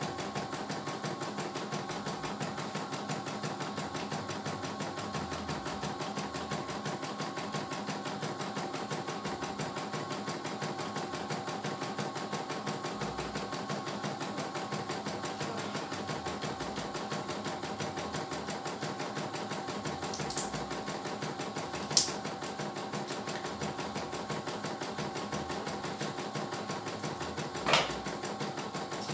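A CNY E900 computerized embroidery machine stitching a design, its needle running in a fast, steady rhythm over a constant motor hum. A few sharp clicks stand out in the last third, the loudest about two-thirds of the way through and near the end.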